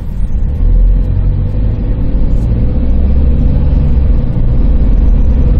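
Engine and road noise of a 2008 Hyundai Grand Starex van heard from inside the cabin while driving. A steady low rumble with a thin steady hum above it, growing louder a little under a second in.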